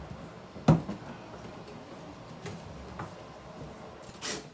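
Knocks and clatter from work on a washbasin vanity. One sharp, loud knock comes just under a second in, a few lighter knocks follow, and a short rustling burst comes near the end.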